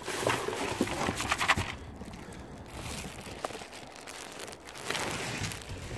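Packaging crinkling and rustling as a new engine cam cover and its gasket are unwrapped. It comes in two spells, one near the start and one about five seconds in.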